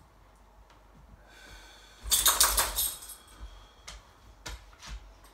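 Dog's collar tags jingling: a rapid metallic rattle about two seconds in, lasting about a second, then a few single clinks.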